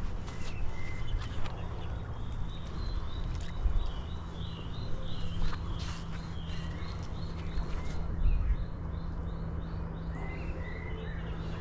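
A bird singing a long run of quick, repeated high chirps over a low rumble and a steady low hum.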